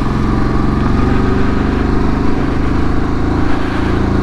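Motorcycle engine running steadily while being ridden at road speed, its exhaust beat even throughout.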